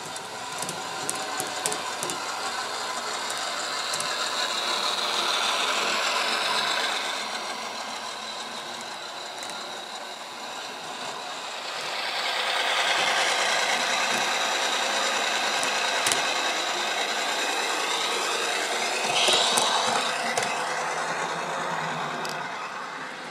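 HO-scale model trains running on the layout's track: wheels clicking and rattling over rail joints, with the whirr of motor and gears. The sound swells twice, the second time as a string of goods vans passes close by.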